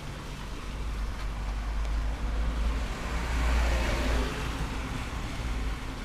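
A road vehicle passing by, its noise swelling to a peak a little past the middle and then fading, over a steady low rumble of wind on the microphone.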